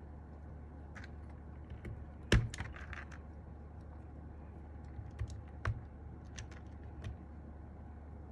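Mechanical keyboard switches being handled and pressed into the hot-swap sockets: a few irregular plastic clicks and clacks, the loudest about two and a half seconds in, over a low steady hum.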